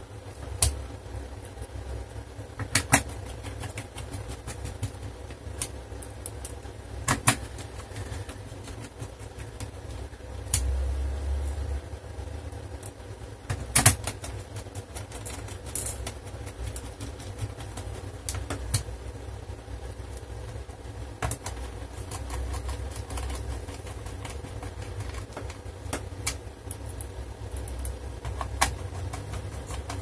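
Scattered small clicks and knocks, every few seconds, of screws and a screwdriver being handled as screws are driven into a laptop's plastic underside, over a low steady rumble.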